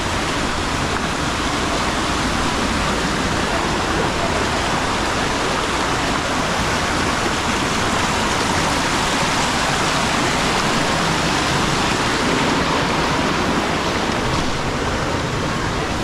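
Waterfall rushing steadily and loudly: an even, unbroken noise of falling water.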